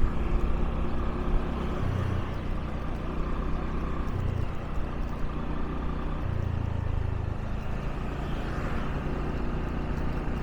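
A motorbike running while being ridden, a steady low engine hum that swells briefly three times.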